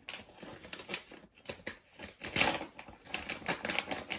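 Packaging of a set of phono cables being opened and handled by hand: irregular crinkling and clicking.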